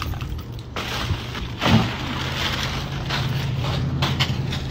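Plastic buckets of cellophane-wrapped flower bouquets kicked over: a sharp thud about two seconds in, then a longer rustling, scraping hiss. A steady low traffic hum runs under it.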